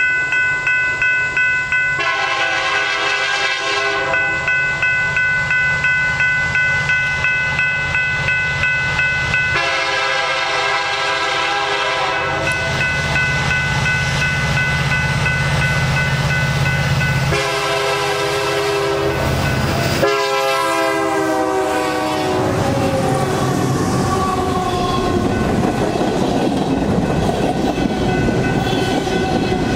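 Diesel locomotive air horn sounding four blasts over a ringing crossing bell, the last blast dropping in pitch as the locomotive passes. The train then rolls by with wheel and rail noise.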